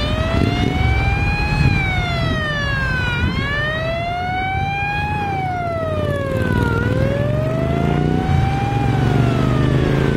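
Escort vehicle's siren in a slow wail, sliding up and down about every three and a half seconds, over the running engines of passing vans and motorbikes.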